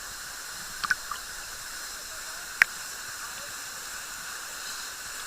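Steady hissing rush of a waterfall's falling water, with two brief sharp clicks about one and two and a half seconds in.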